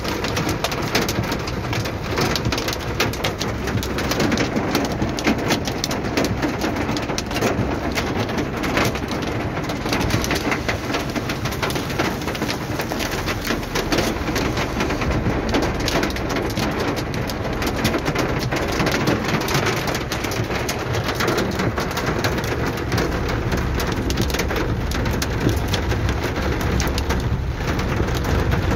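Hail and heavy rain pelting a car's roof and windshield, heard from inside the car as a loud, dense, unbroken patter of sharp hits.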